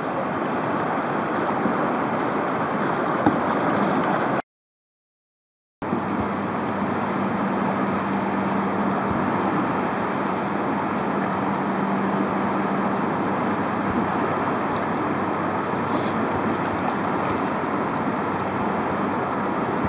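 Whitewater rapids rushing steadily, broken by a short gap of dead silence about four seconds in.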